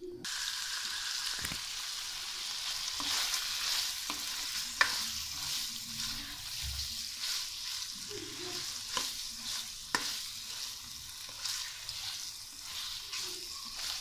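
Chicken cubes sizzling steadily in butter in a non-stick kadai, stirred with a spatula that knocks and scrapes against the pan a few times. The raw chicken is being seared until it turns white.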